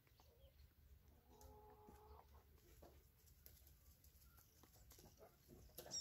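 Near silence, with one faint bird call lasting about a second, around a second and a half in, and a few faint ticks. A high, falling whistle starts right at the end.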